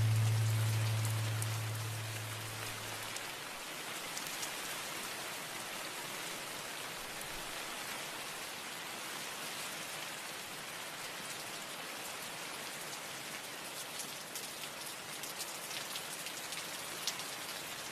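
Steady rain falling, an even patter with a few sharper drops near the end. In the first three seconds the last low note of the slowed, reverbed song fades out under it.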